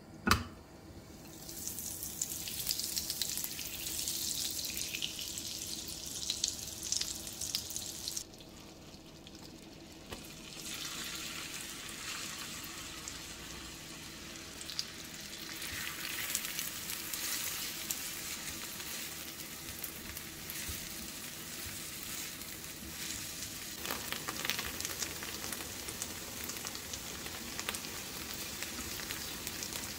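Butter and olive oil sizzling in a hot frying pan, then chopped onion frying in the fat and stirred with a silicone spatula. A single sharp knock comes right at the start, and the sizzle cuts off suddenly after about eight seconds before returning a couple of seconds later.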